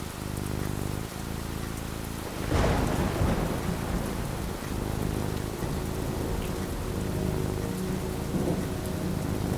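Steady rain with a thunderclap about two and a half seconds in: a sudden crack that rolls into a long low rumble of thunder.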